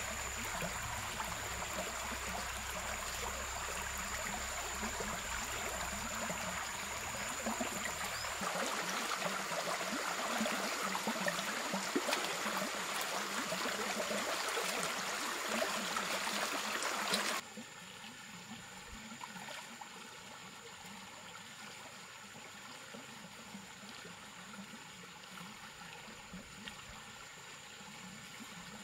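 Running water as a steady rushing hiss, dropping abruptly to a much quieter level about two-thirds of the way through. A thin, steady high tone sits above it.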